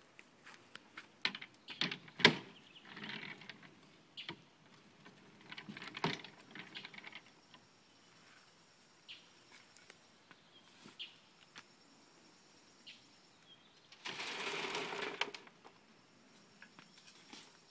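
A few sharp knocks and clatters, one much louder than the rest, then a shovelful of compost dumped onto a wire-mesh sifter frame, a gritty rush lasting about a second and a half.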